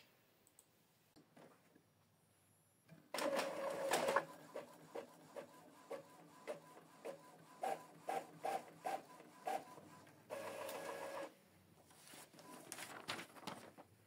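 Epson EcoTank ET-2870 inkjet printer starting a test-page print job. After a few quiet seconds there is a short mechanical whir, then a run of short clicks and ticks at about two a second. A second brief whir follows, then a few faint ticks near the end.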